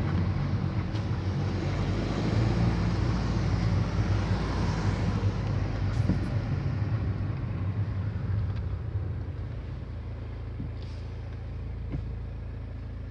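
Car driving slowly, with a steady low rumble of engine and tyres and a rushing haze over it, heard from inside the car; the sound grows quieter and duller in the last few seconds.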